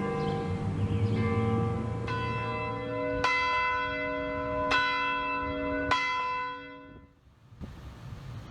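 Church bells ringing, with a series of strikes that each ring on and die away. The three loudest strikes come about a second and a half apart, and the ringing dies out about seven seconds in.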